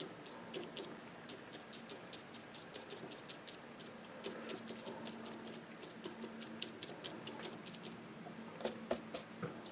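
Paintbrush dabbing paint onto watercolour paper: faint, irregular light taps, several a second, a little stronger near the end, over a low steady hum.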